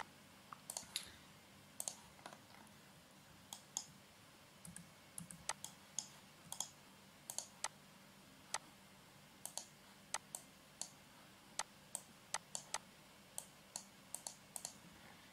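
Quiet, irregular clicking of a computer mouse and keyboard: dozens of sharp single clicks, some coming in quick pairs or short runs.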